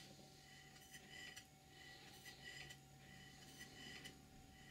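Stuart Models "James Coombes" model steam engine running on compressed air, heard faintly: soft puffs of exhaust hiss with light ticks, repeating about once a second.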